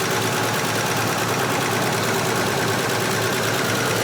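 Volvo 164's B30 straight-six idling steadily with its carburetors open to the air, no air filter fitted. This is a worn engine with known blow-by.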